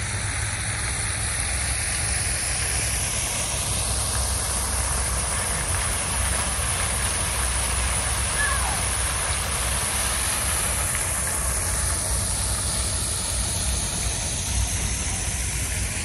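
Steady rushing outdoor noise with a low rumble underneath and a slowly sweeping hiss, mixing road traffic and running water; a faint short chirp about halfway through.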